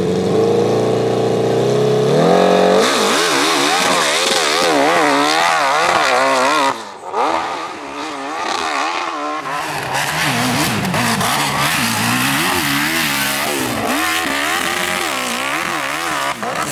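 Hillclimb motorcycle engine held at high revs on the start line, then launching about three seconds in. Its note then rises and falls rapidly over and over as the paddle tire spins and bites up the dirt hill.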